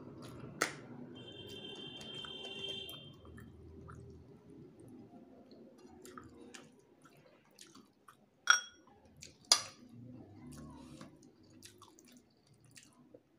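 Eating rice by hand from a ceramic plate: soft chewing and the squish of rice being mixed with fingers, broken by a few sharp clinks on the plate, the loudest two about a second apart past the middle.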